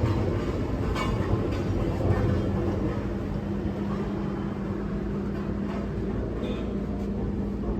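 Steady rumble of busy street traffic, with a low, even engine hum that sets in about two seconds in and a few faint taps.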